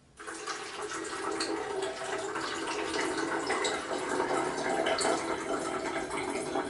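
A man urinating: a steady, continuous stream of liquid.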